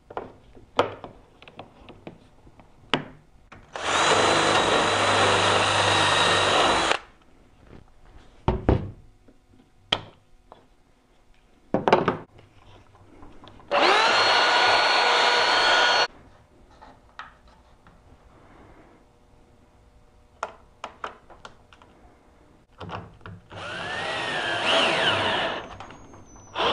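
Ryobi cordless drill boring a hole through a drawer slide mounting hole into the drawer: two runs of about three and two seconds, each spinning up fast and then holding a steady pitch, then a softer run with rising and falling speed near the end. Scattered clicks and knocks between the runs.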